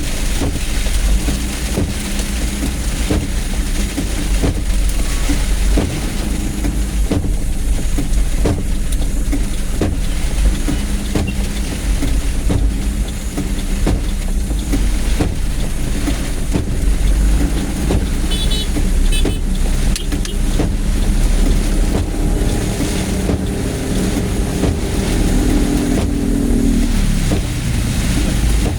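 Vehicle running in traffic: a steady low rumble with frequent sharp ticks, and a pitched hum that rises briefly near the end.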